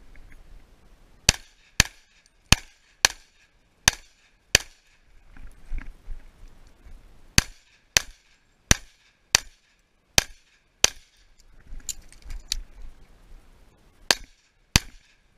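Pistol shots fired at a match course of fire: six quick shots, a pause of about three seconds, six more shots, then two more near the end.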